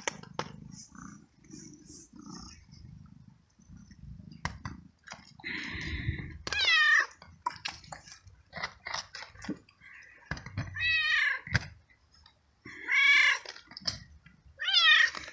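A young cat meowing: four drawn-out meows in the second half, each bending up and down in pitch.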